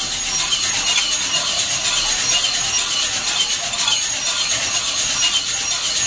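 Coffee beans tumbling and rattling inside a hand-cranked mesh drum roaster as the drum is turned during roasting: a steady dry rasping rush.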